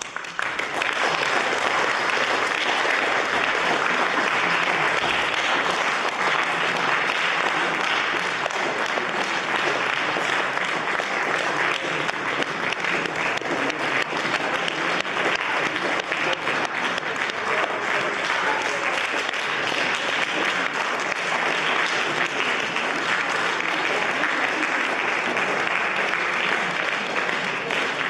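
Audience applauding: a dense, steady clatter of many hands that starts suddenly and keeps up evenly.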